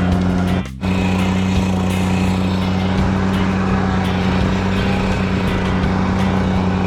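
Gasoline engine of concrete equipment running steadily at a constant speed, with a brief break under a second in.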